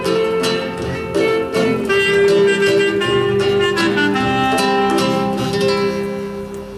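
Clarinet and nylon-string acoustic guitar playing together, held melodic notes over plucked guitar chords, the sound fading away near the end as the piece closes.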